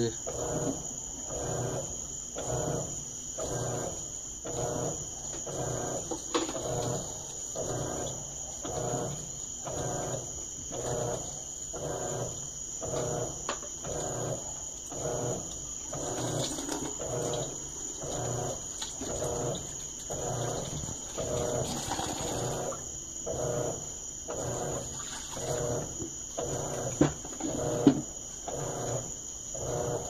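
Electrolux LT12F top-load washer agitating a full load during the wash stage of its Normal cycle: the motor hums with each back-and-forth stroke of the agitator, in an even rhythm of a little over one stroke a second, as the clothes and water churn.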